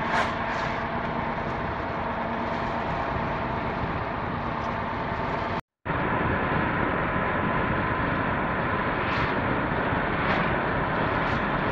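Steady road and engine noise inside the cab of a Ford Econoline E-250 van driving at highway speed. The sound breaks off to silence for a moment about halfway through.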